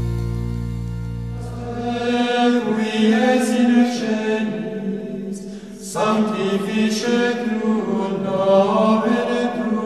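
Sung sacred chant: voices singing phrase after phrase, with a short break about six seconds in. A low held note from the previous music fades out under the first two seconds.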